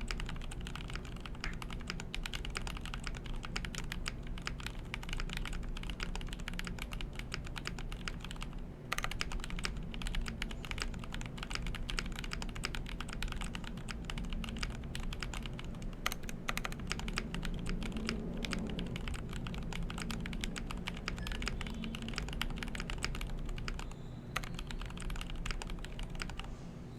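Fast, continuous typing on a GMMK Pro mechanical keyboard with lubed Gateron Milky Top switches fitted with Feker (Halo) stems, in an aluminum plate with the case foam removed. The keystrokes run in a dense stream, with a brief pause about nine seconds in.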